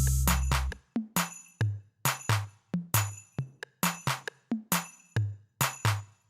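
Background music: a sparse electronic beat of short drum-machine hits, about two to three a second, with low bass notes.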